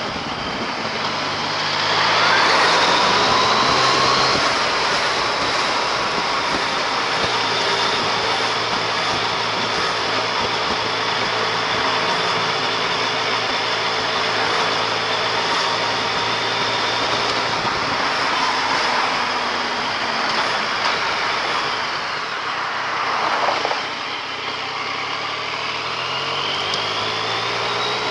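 Yamaha MT-09 Tracer motorcycle's three-cylinder engine running under way with steady wind rush; the engine note climbs as it accelerates about two seconds in and again near the end.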